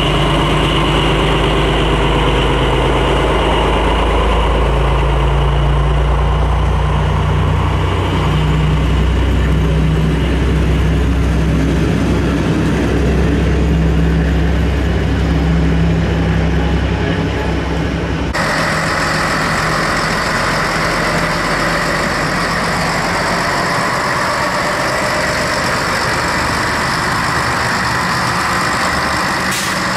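MÁV M62 diesel locomotive's two-stroke V12 engine idling with a deep drone whose pitch shifts a little. About two-thirds of the way in the sound changes abruptly to a Bzmot diesel railcar's engine idling, a steadier, brighter hum.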